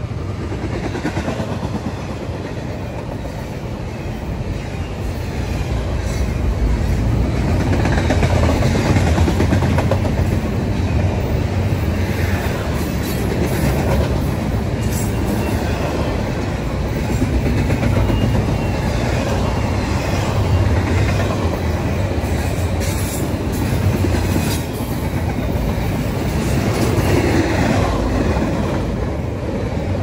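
Double-stack intermodal container train's well cars rolling past at track speed: a steady, loud rumble of steel wheels on the rails.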